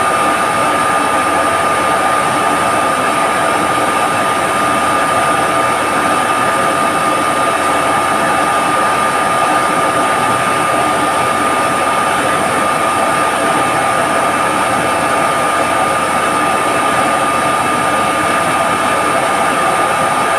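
Reverse-osmosis plant machinery running: a loud, steady drone with a constant high whine that never changes.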